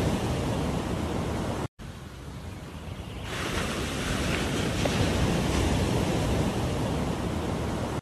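Surf washing onto a beach, a steady rushing noise with wind buffeting the microphone. The sound cuts out abruptly a little under two seconds in, returns quieter and builds back to full level over the next second and a half.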